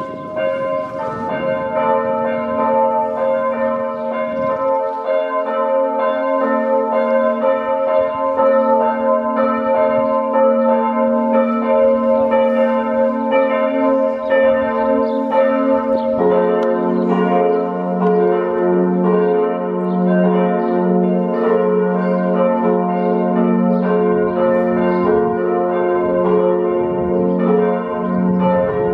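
Several church bells ringing together in a peal, their tones overlapping with frequent strikes, played back sped up. A deeper bell joins a little past halfway.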